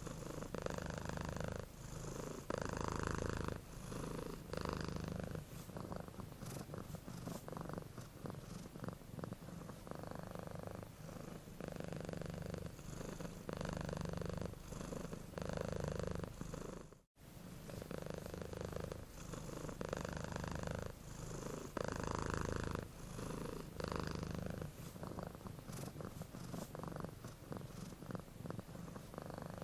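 Domestic cat purring close up, the purr swelling and easing with each breath in and out, every second or two. It cuts out completely for a moment a little past halfway, then carries on.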